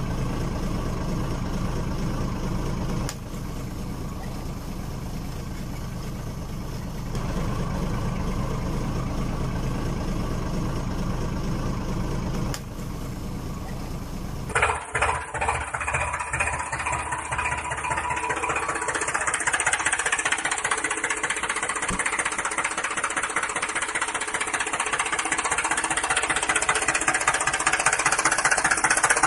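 A steady, low engine-like drone that shifts in level a few times. About halfway through it gives way abruptly to a brighter, hissing whir that slowly grows louder toward the end.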